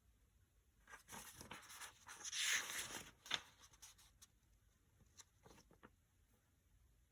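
Faint rustling and scraping with several sharp clicks, as of something being handled, loudest about two and a half seconds in, followed by a few fainter clicks near five to six seconds; no motor is running.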